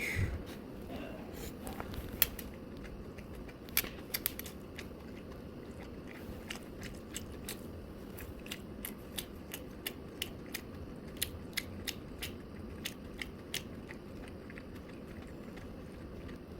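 A person eating: chewing, with a run of short, sharp, crisp clicks a few times a second over a steady low hum.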